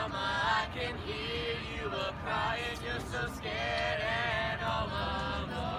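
A group of voices singing together, the pitches sliding and wavering, during a marching band's halftime show.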